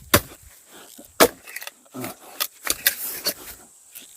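Pieces of firewood knocking against each other as they are handled and stacked: a string of sharp, irregular wooden clacks, the loudest a little after the start and about a second in.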